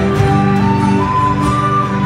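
Instrumental passage of a folk-pop song: sustained melody notes over a steady accompaniment, with no singing.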